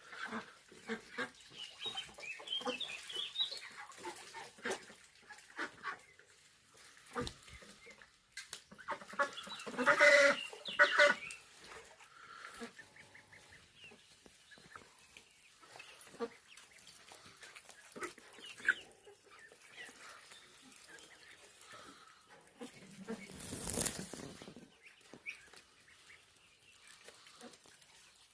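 Chickens clucking in short scattered calls, with a louder pitched call about ten seconds in, and a brief rushing noise a few seconds before the end.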